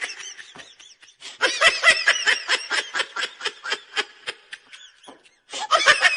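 A person laughing hard in quick, high-pitched bursts, several a second, with short breaks about a second in and near five seconds.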